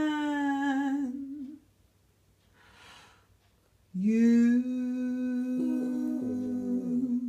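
Small long-haired dog howling along to a sung song. A long held howl trails off about a second and a half in; after a short pause another howl swoops up in pitch and is held for about three seconds, with a second, wavering voice joining partway through.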